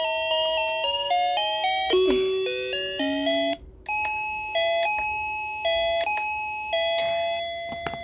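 Piranha battery-powered wireless doorbell's indoor chime unit playing electronic ringtone melodies of quick stepped notes through its small speaker. One tune ends about three and a half seconds in and, after a short break, a second of its 16 ringtones plays until near the end.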